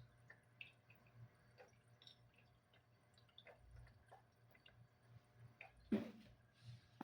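Near silence with faint scattered small clicks, and one sharper knock about six seconds in.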